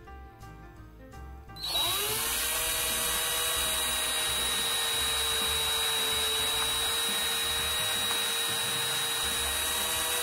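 Cordless drill starting up about two seconds in, its whine rising in pitch, then running steadily as the bit finishes a pre-drilled hole lengthwise through a small hand-held lure body of light driftwood, and winding down with a falling whine at the end.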